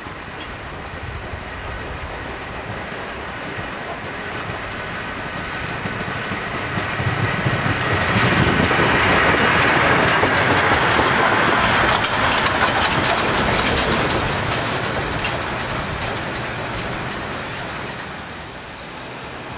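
DB class 50 steam locomotive, a two-cylinder 2-10-0, running through a station and passing close by. Its running noise swells to a peak about halfway through, then fades as it draws away.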